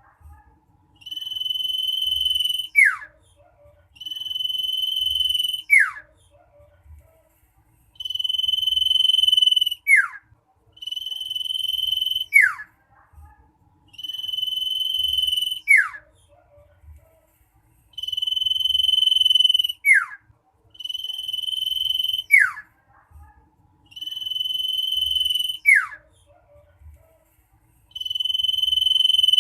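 Common iora (cipoh) singing. Each phrase is a long, steady, high whistle ending in a quick downward slur, repeated about every three seconds, nine times through.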